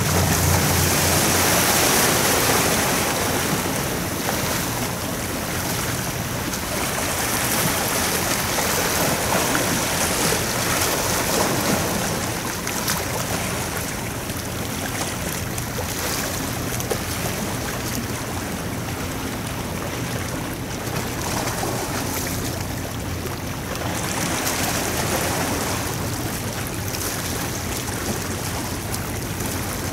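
Wind rushing on the microphone and waves washing, swelling and easing every several seconds. A faint low steady hum of a ship's engine runs underneath, strongest in the first second.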